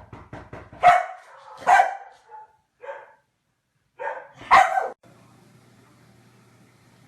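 A dog barking in a short string of loud barks, three of them the loudest, with quieter ones between; a quick run of short taps comes just before the first bark.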